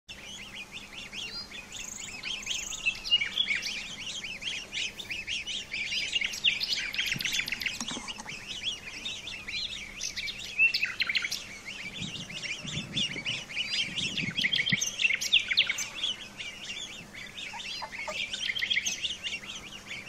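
Several domestic goose goslings peeping: a dense, continuous run of high, quick chirps. A few lower sounds join in around the middle.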